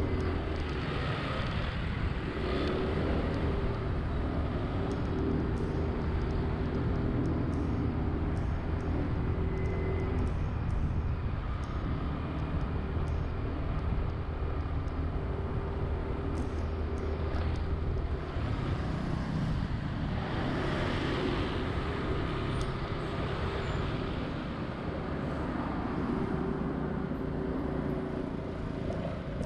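Riding a Honda Zoomer-X scooter in city traffic: its engine runs steadily under the continuous noise of surrounding road traffic.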